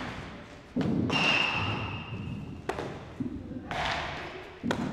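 Three sharp thuds of baseballs striking the floor and gloves during a ground-ball drill, about two seconds apart, each trailing off in the echo of a large indoor hall.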